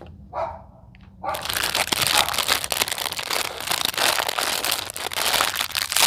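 Plastic packaging being crinkled and handled: a loud, dense crackle full of small clicks that starts about a second in and keeps going.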